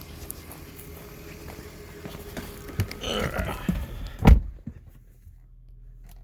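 Rustling and knocking, then a car door shut with a single heavy thunk about four seconds in. After that only the low, steady hum of the Lexus GS300's idling inline-six remains, muffled as heard from inside the closed cabin.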